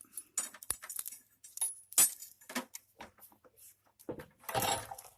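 Small steel chain clinking and jangling as it is handled, with a string of sharp metallic clicks, one loudest about two seconds in, and a short scraping rattle near the end.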